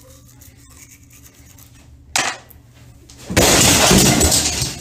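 Faint scrubbing of a toothbrush, then a sharp knock about two seconds in. A loud clattering rush follows near the end as the shower curtain is yanked aside and its rings scrape along the rod.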